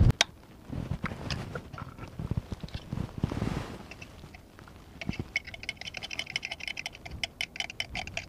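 Metal hook of a wooden-handled oyster pick clicking and scraping against oyster shell as the meat is pried loose. The clicks are scattered at first, then come as a fast run of sharp ticks from about five seconds in.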